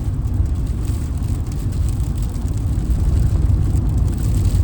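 Steady low rumble of a campervan's engine and tyres on the road, heard from inside the cab while driving.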